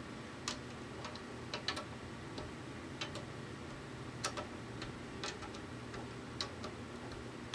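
Banjo tension hooks being tightened in turn: small sharp clicks at irregular intervals, about a dozen, over a low steady hum.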